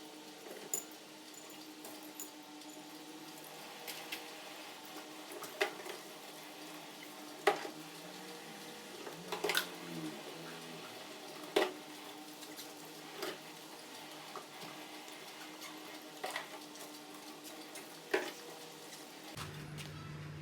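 Scattered light clicks and knocks, about ten spaced unevenly a second or two apart, from bottles, caps and utensils being handled in a kitchen. They sit over a faint steady hum.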